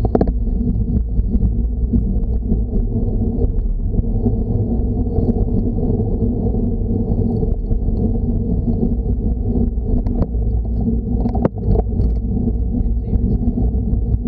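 Steady low rumble of wind and road noise on the microphone of a bicycle-mounted action camera while riding uphill, with a few sharp clicks at the start and again about two-thirds of the way through.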